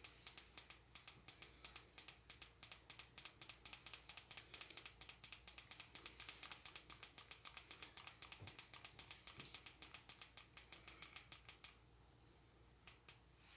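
Rapid run of light clicks from the buttons of a handheld remote control being pressed over and over, about five a second, stopping after about twelve seconds, then two more single clicks near the end.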